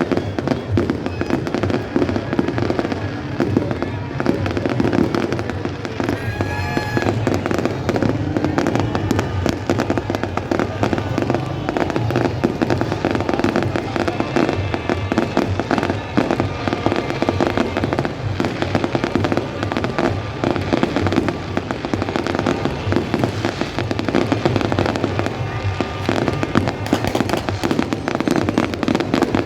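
Fireworks display: a continuous barrage of bangs and crackles, with music playing underneath.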